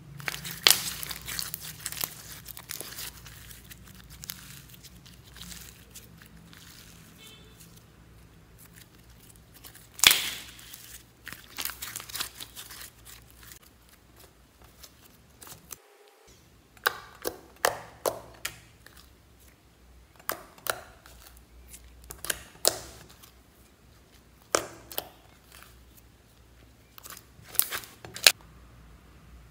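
Hands squeezing, folding and pressing glitter slime, trapped air escaping in sharp wet pops and crackles. The pops come in dense clusters at first, then singly, about one or two a second, in the second half.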